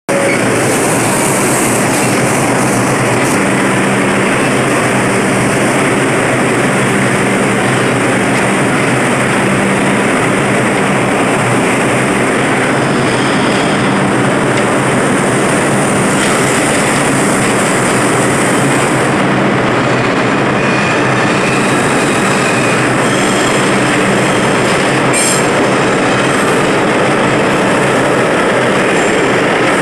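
New York City Subway R142A train departing a station platform and picking up speed past it, a steady loud train noise with some wheel squeal and clatter.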